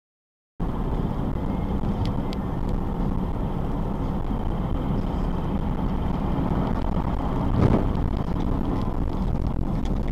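Steady road and engine rumble inside a moving car, picked up by a dashcam. It cuts in abruptly after a moment of silence, with a few faint ticks early and a brief louder thump about three quarters of the way through.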